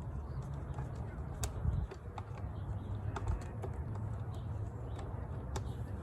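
Scattered light clicks and taps, a few seconds apart, of parts and tools being handled during engine-bay reassembly, over a steady low rumble.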